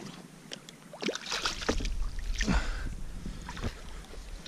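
Clicks and knocks of a fishing rod and landing net being handled aboard a kayak while a hooked whitefish is brought alongside, with water sloshing. A low wind rumble on the microphone comes in about a second and a half in.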